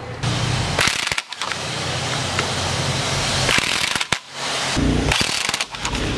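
Cordless impact wrench hammering as it drives the fork clamp bolts tight on a motorcycle's fork bracket, with the rapid rattle of the impact mechanism over the motor's hum. It runs in several bursts, stopping briefly about a second in and again about four seconds in.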